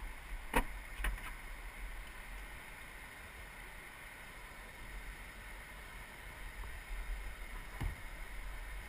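Steady rush of water around a kayak, with a low rumble. Sharp knocks or splashes come about half a second and one second in, and again near the end.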